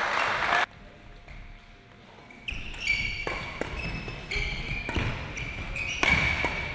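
Badminton rally on a sports-hall court: shoes squeaking on the court floor and sharp racket hits on the shuttlecock, starting about two and a half seconds in. Before that, a loud noisy burst cuts off abruptly within the first second.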